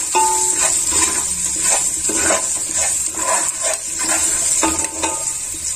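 Oil sizzling in a steel pot while a spoon stirs and scrapes through a frying tempering of cashews, spices, green chillies and onion, with scraping strokes about twice a second under a steady sizzle.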